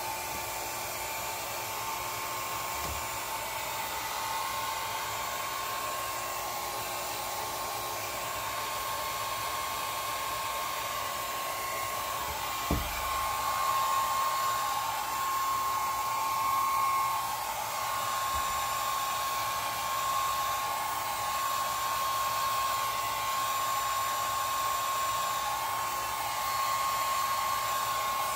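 A cheap little handheld hair dryer running steadily, a blowing rush with a steady whine from its motor. A single short knock sounds about twelve seconds in.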